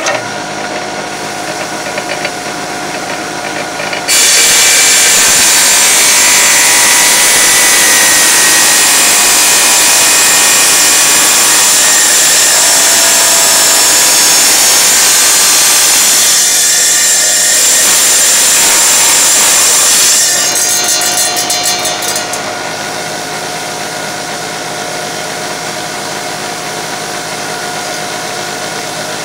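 Electric tile saw running, its blade cutting through a ceramic tile: a loud grinding cut from about four seconds in to about twenty seconds, then the motor spinning freely again.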